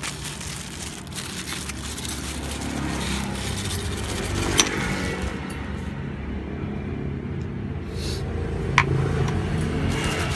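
A steady low mechanical hum, like an engine or machine running, with two sharp metallic clicks about four seconds apart.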